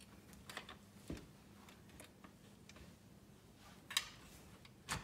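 Faint, scattered clicks and taps of a screw and an aluminium tripod leg being handled as the screw is lined up through the leg's top hole on the telescope tripod head. A soft thump comes about a second in, and the sharpest click about four seconds in.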